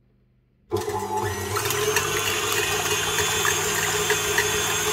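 Electric mixer switched on about a second in, then running steadily on high speed, its beaters whipping egg whites.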